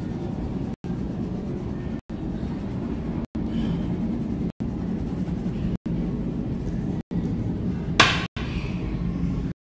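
Steady low background hum, cut by brief dropouts about every second and a quarter, with one sharp knock about eight seconds in.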